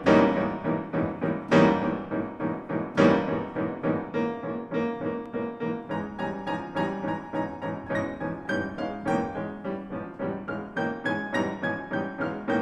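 Piano music: three loud chords about a second and a half apart, then a stream of quicker notes that reaches higher toward the end.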